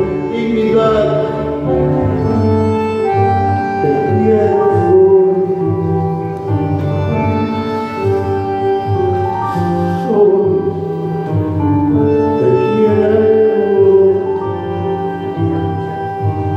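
Slow music with long held notes and chords changing every second or two.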